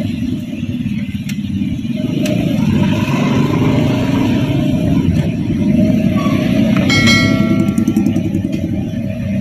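Car engine and tyre rumble heard from inside the cabin while driving slowly along a narrow lane, with a short high-pitched beep about seven seconds in.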